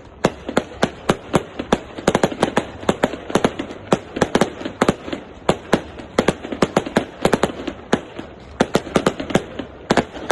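Fireworks display: a rapid, irregular barrage of sharp firework bangs, about five a second, with a last loud bang near the end.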